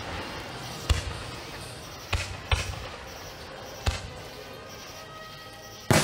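Fireworks shells bursting: five sharp booms, each trailing off in a rumble, about a second in, two close together around two seconds, one near four seconds and one near the end. Faint music plays underneath.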